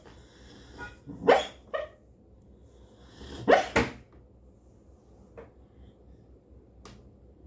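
Dog giving short barks in two pairs, the second pair about two seconds after the first.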